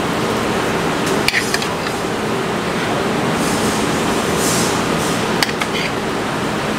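Steady fan noise of commercial kitchen ventilation, with a few light clinks of a metal serving spoon against the plate and pan, a couple about a second in and another near five seconds.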